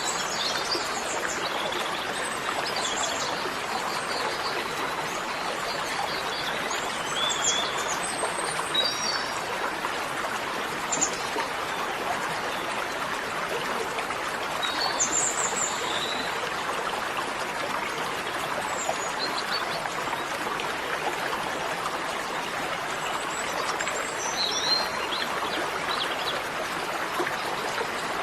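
Small birds chirping now and then over a steady rushing hiss, like running water.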